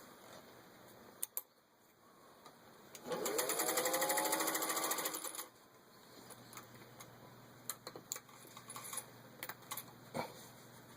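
1953 Singer 201-2 sewing machine stitching through four layers of thin leather. It runs in one burst of about two and a half seconds, starting about three seconds in: the motor's whine rises in pitch as it speeds up over rapid stitching clatter, then stops suddenly. Scattered light clicks come before and after.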